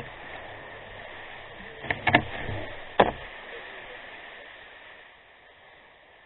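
Sea kayak hull scraping over wet sand as it is pulled by its bow toggle, heard through the deck-mounted camera. About two seconds in come three quick sharp knocks on the hull, then one more a second later. The scraping fades and stops near the end as the kayak comes to rest.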